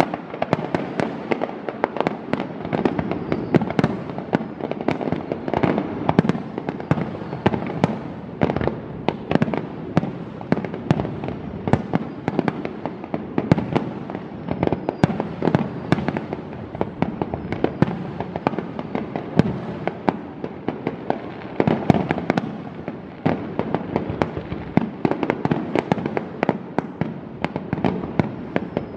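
Fireworks display going off in a dense, continuous barrage of bangs and crackles, many per second, without a pause.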